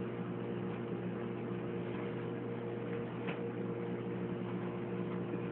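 A steady electrical hum of several constant tones from a running appliance, with a couple of faint clicks.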